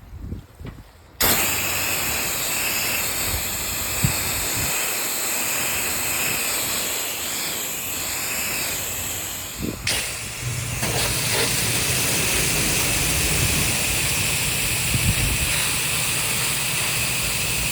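Water spraying from a house-washing rig's spray wand, a loud steady hiss that starts about a second in, cuts out briefly just before the halfway point, then runs again and stops shortly before the end. A low hum from the rig's pump and engine sits under the second spray.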